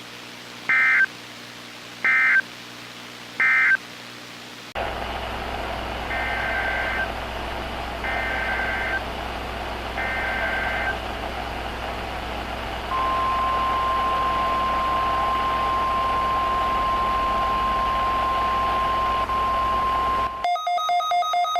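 Three short Emergency Alert System SAME data bursts, a two-tone digital screech, mark the end of the first alert's message. Then, over a hum and hiss, three longer SAME header bursts open a second high wind warning alert, followed by the steady 1050 Hz NOAA Weather Radio warning alarm tone held for about seven seconds. Near the end the weather radio's own rapid electronic alert beeping starts.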